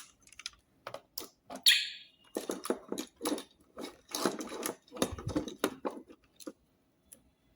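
Plastic clicks, knocks and rustling as power adapters and their wires are handled and plugged in. A short, harsh scraping burst about two seconds in is the loudest sound, and it goes quiet for the last second or so.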